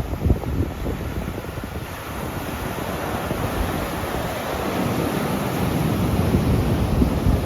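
Sea surf breaking on the shore with wind buffeting the microphone; the wash of the waves swells louder in the second half.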